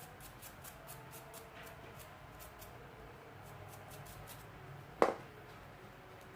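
A run of light, quick clicks, about five a second, from small parts or tools being handled, then one sharp tap about five seconds in.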